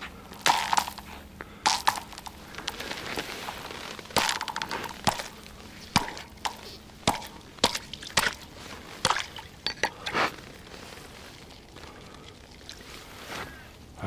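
Thin first ice, about 3 to 3.5 cm thick, being struck and broken through: a series of sharp, irregular strikes with ice cracking and clinking and water sloshing.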